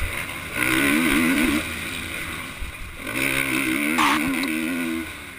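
A 450-class motocross bike engine, heard from an onboard camera, revving hard in two surges with easing off between them, over a rush of wind on the microphone.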